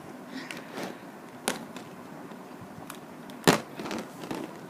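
Hard plastic clacks of Rubik's cubes being handled: two sharp knocks, the louder one about three and a half seconds in, with a few faint clicks between.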